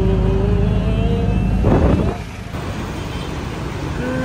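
Auto-rickshaw engine running, heard from inside the open cabin as a steady low drone. About two seconds in, it cuts off abruptly to quieter street traffic noise.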